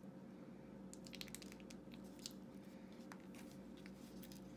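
Faint crinkling and tearing of a small toy-packaging pouch being picked open by hand, with a cluster of soft crackles about a second in and a lone crackle a little past three seconds.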